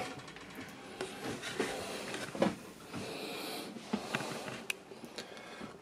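A few soft knocks and rustles over quiet small-room tone, the clearest knock about halfway through.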